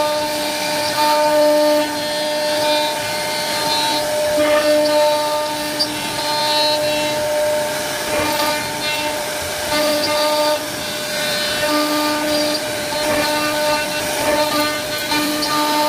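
CNC router spindle whining steadily as its bit engraves grooves into a wooden panel, with a lower tone that comes and goes every second or two as the head moves between cuts.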